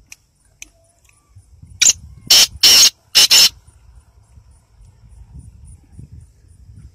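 Black francolin calling: four loud, harsh, grating notes in quick succession about two seconds in, over about a second and a half. A faint high ticking, about four a second, goes on behind it.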